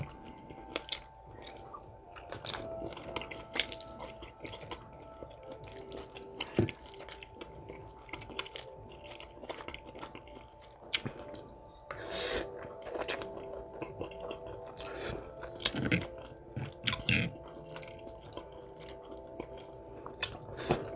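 Close-miked chewing of Korean short rib and spaghetti: wet mouth clicks and smacks, irregular and frequent, over a faint steady hum.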